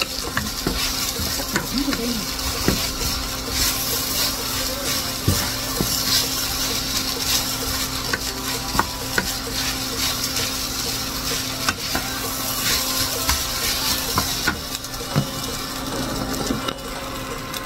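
Julienned potato strips sizzling as they fry in a nonstick frying pan, stirred and turned with a wooden spatula, with frequent light clicks and scrapes of the spatula against the pan over a steady sizzle.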